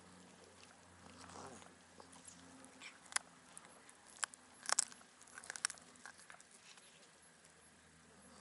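Cat chewing raw fish, with sharp wet crunches of bone coming in a cluster of bites near the middle.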